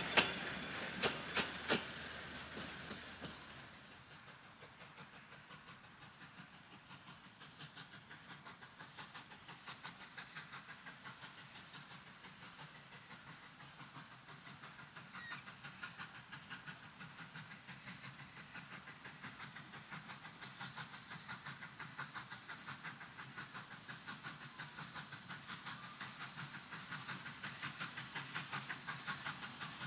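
Train carriage wheels clicking over rail joints fade away in the first few seconds. A distant Victorian Railways K class 2-8-0 steam locomotive then takes over, its exhaust beating in a steady, rapid rhythm that grows slowly louder as it approaches.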